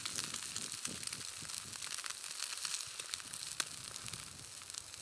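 Eggs frying in a silicone egg ring over a stove of glowing coconut-shell coals: a steady sizzle with many small crackles and clicks.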